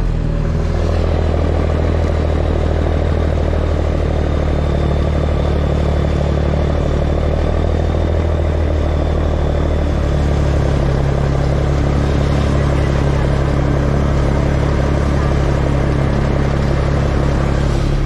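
Heavy truck engine running steadily, heard from inside the cab with cab rattle, as the truck drives across a harvested corn field; the engine note changes about ten seconds in. A faint high whine sounds for a few seconds in the middle.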